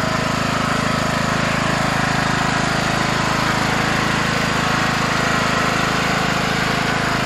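Riding lawn mower's engine running steadily at an even pitch as the mower is driven across grass.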